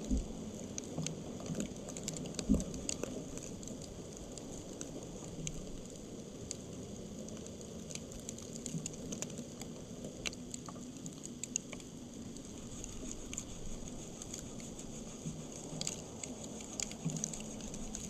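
Light, irregular pattering and ticking on dry leaf litter over a steady hiss, with one dull thump about two and a half seconds in.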